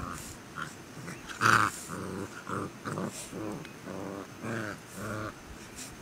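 Tibetan mastiff growling in a string of short, pitched grumbles, about two a second, the loudest about a second and a half in.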